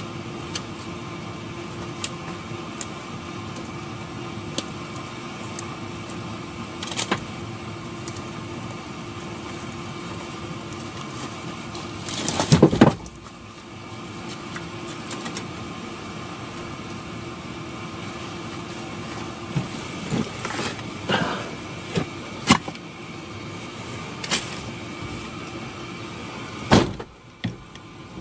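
Steady hum of an idling vehicle, heard from inside it, with faint clicks and a few louder knocks, the loudest about twelve seconds in.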